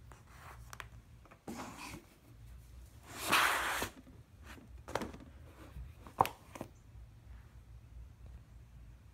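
Hands handling a car amplifier: rubbing and sliding noises, the loudest a scrape lasting about half a second some three seconds in, followed by a couple of light knocks.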